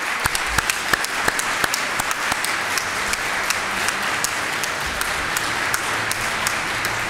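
Audience applauding steadily, with close individual claps standing out among the dense clapping of the crowd.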